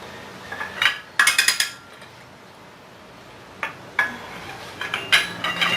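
Steel clinks and taps with short metallic ringing as a wrench is fitted and worked on the steel bolts of a jackshaft pulley's bushing: a cluster about a second in, then scattered clinks near the end after a quiet pause.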